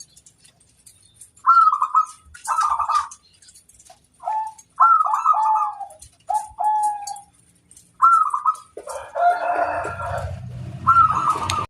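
Zebra doves (perkutut) cooing in short phrases of quick rippling notes, about eight phrases with brief pauses between them. About nine seconds in, a longer, harsher call with a deep undertone overlaps them.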